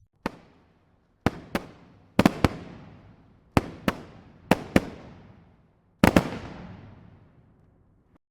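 Fireworks exploding: a series of sharp bangs, mostly in close pairs about a quarter to a third of a second apart, each trailing off in a fading echo. The last and loudest cluster comes about six seconds in.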